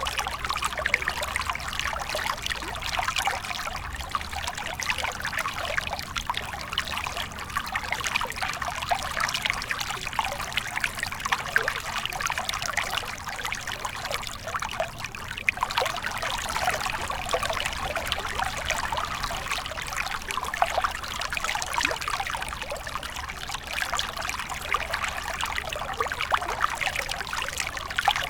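River water trickling and babbling steadily, with a dense patter of small splashes.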